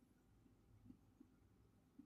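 Near silence: faint room tone with a low hum, and two faint soft taps about a second in.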